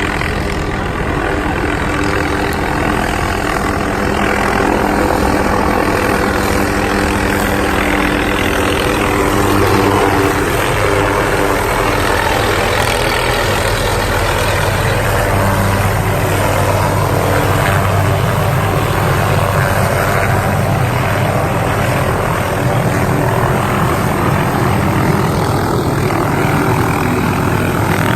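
Helicopter running, a loud, steady engine and rotor drone.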